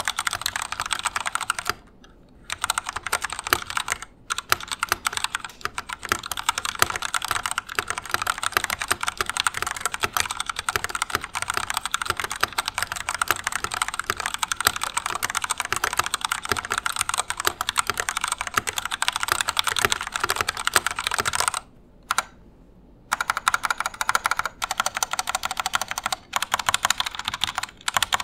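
Fast continuous typing on an Epomaker EP84 75% mechanical keyboard with Gateron Black linear switches and stock stabilizers, keys clacking densely with brief pauses, a longer one about 22 seconds in.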